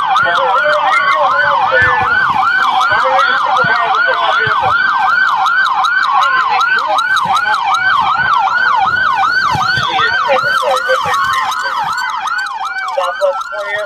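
Emergency vehicle sirens sounding close by: a fast yelp sweeping up and down about three times a second, overlapped by a slower wail gliding down at times.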